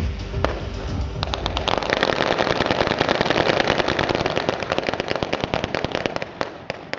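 Rapid, dense crackle of blank gunfire and pyrotechnic charges in a staged battle reenactment. It starts about a second in over a low rumble, and thins out and fades near the end.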